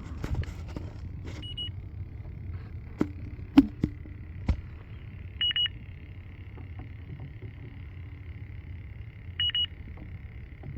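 Fieldpiece DR82 heated-diode refrigerant leak detector sounding short groups of two or three high beeps about every four seconds, over a low steady hum. A few sharp knocks around three to four and a half seconds in.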